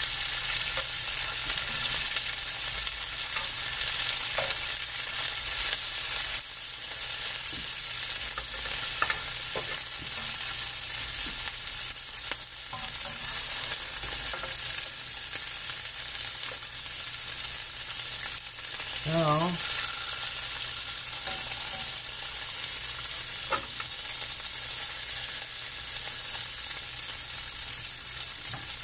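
Pork chops sizzling steadily in hot fat in a frying pan, with occasional light scrapes and clicks as a fork and knife move them around in the pan.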